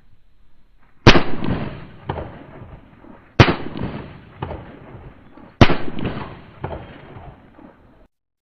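Three handgun shots, slow and evenly spaced a little over two seconds apart, each followed by a long echoing tail with a fainter crack in it. The sound cuts off suddenly near the end.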